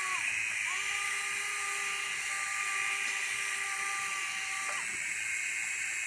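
Electric motor whine of a small indoor remote-control toy helicopter, over a steady hiss. A short whine fades just after the start; the motor spins up again under a second in, holds a steady pitch, then winds down near five seconds.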